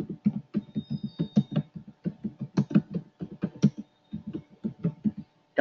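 Typing on a computer keyboard: an uneven run of key clicks, about five or six a second, that stops shortly before the end.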